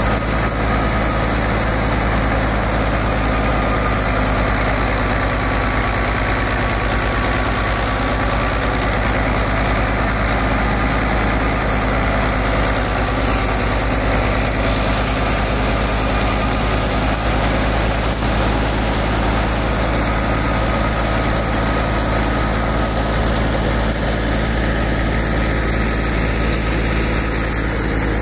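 Fiat 640 tractor's diesel engine running steadily, driving a wheat thresher, with the thresher's machinery running alongside.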